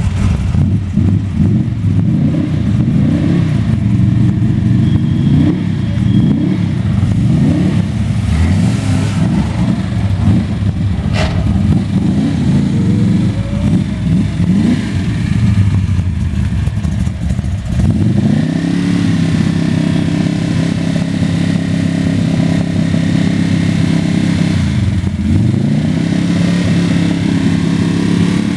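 A 1960s Chevrolet Corvette Sting Ray race car's V8 is revved up and held at a steady speed for a noise test. It drops back once and climbs to the held revs again. Earlier, engines are blipped in quick rises and falls.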